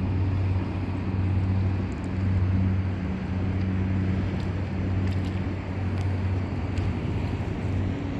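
A steady low engine drone with a constant hum, over outdoor background noise.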